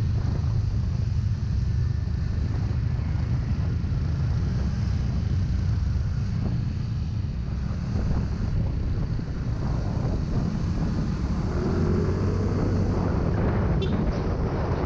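Heavy wind buffeting the microphone on a moving ride, a steady low rumble throughout, with a faint pitched whine coming through about eleven seconds in.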